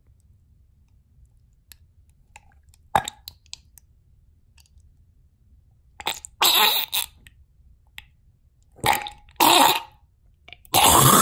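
A man gagging and hacking in his throat in several short, harsh bursts from about halfway through, after a single sharp click about three seconds in: his gag reflex is set off by working at his tonsils.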